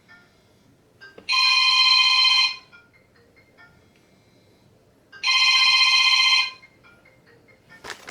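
A phone ringtone ringing twice, each ring just over a second long and about four seconds apart, with a short clatter of clicks near the end.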